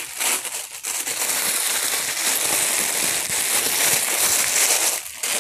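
Tissue paper crinkling and rustling as a rolled painting wrapped in it is unwrapped by hand, with a brief lull near the end.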